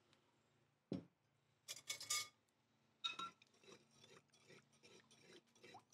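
Salt being stirred into water in a small clay pot, the utensil scraping round the earthenware about three strokes a second from about halfway through. Before the stirring settles there is a dull knock about a second in, then clinks around two and three seconds.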